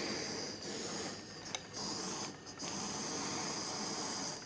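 Kitchen gas blowtorch flame hissing steadily as it caramelizes the sugar topping of a crème brûlée, with a few short dips in level.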